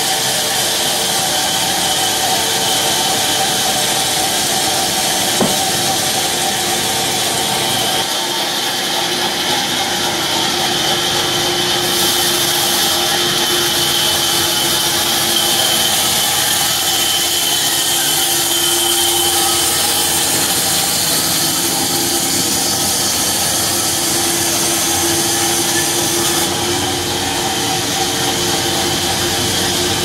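Large belt-driven sawmill band saw running steadily, its blade cutting lengthwise through a log.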